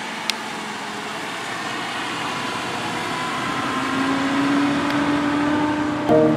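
Diesel engine of a large modern tractor running as it drives slowly round the ring, growing louder with a steady engine note coming in about halfway through. Music starts right at the end.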